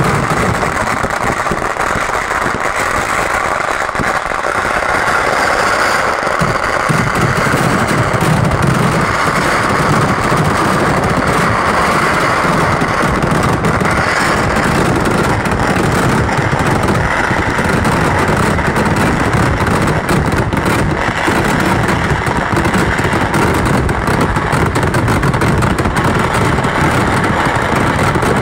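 Vedikettu fireworks: firecrackers and ground shells going off so rapidly that the bangs run together into one continuous crackling rumble, with no pause.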